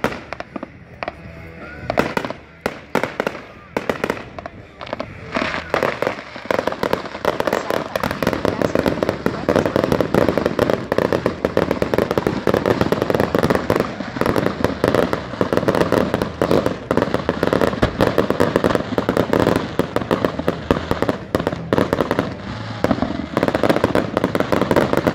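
Aerial fireworks going off: separate sharp bangs at first, then from about five seconds in a dense, continuous barrage of bangs and crackling.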